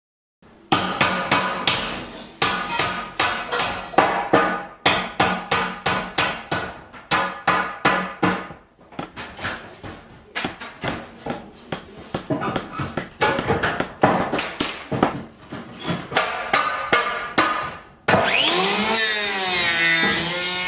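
Hammering: a long run of sharp strikes, several a second in quick bursts with short breaks. Near the end it gives way to a steady whine whose pitch wavers and glides up and down.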